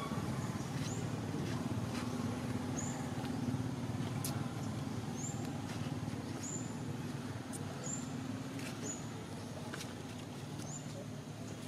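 Outdoor ambience: a steady low rumble under a short, thin, high chirp repeated about once a second, with a few faint clicks.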